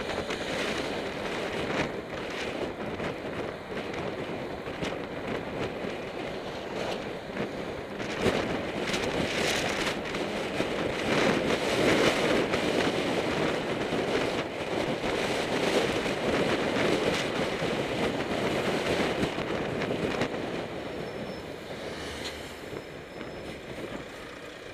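Wind rushing over the microphone of a camera on a moving bicycle, mixed with road and traffic noise from riding at speed downhill. The rushing eases over the last few seconds as the bike slows.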